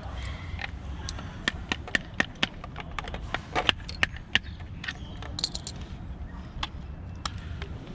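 Irregular sharp clicks and taps of a tool working against the plastic and metal parts of a Tesla Model 3 door handle as it is pushed out of the door, over a low steady hum.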